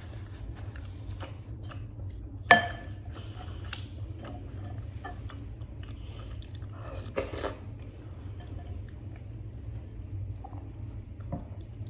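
Close-miked chewing of freekeh and beef, with small wet clicks throughout. A single sharp clink of a utensil against the dish about two and a half seconds in is the loudest sound, and a longer crunching rustle comes around seven seconds in. A low steady hum lies underneath.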